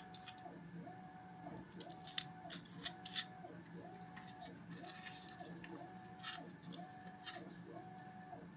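A few faint, irregular clicks and taps from small parts being handled, over a soft tone that pulses about once a second.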